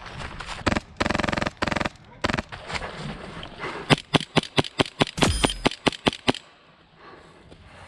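Airsoft guns firing: a rapid burst of shots about a second in, then a string of about ten sharp single shots at roughly four a second that stops about six seconds in.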